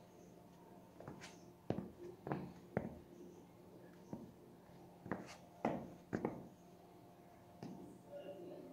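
Footsteps of Under Armour Charged Assert 9 running shoes on a ceramic tile floor: about ten sharp taps and scuffs of the rubber soles at an uneven pace, some paired close together.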